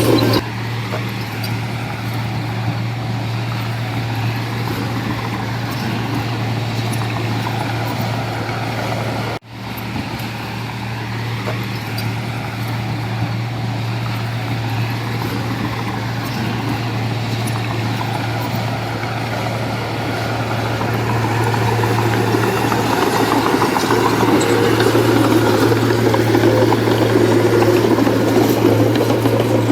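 Diesel engine of earthmoving machinery running steadily with a constant low hum. The sound breaks off for a moment about nine seconds in, then grows louder over the last third.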